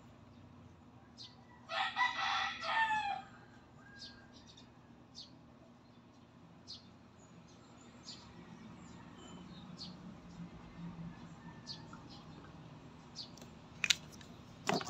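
A rooster crowing once, about two seconds in: a single call of about a second and a half that drops in pitch at the end. The rest is faint scattered ticks over a low hum.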